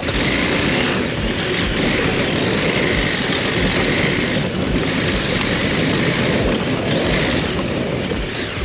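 KTM 890 Adventure R parallel-twin motorcycle running under way, its engine mixed with a steady rush of wind noise.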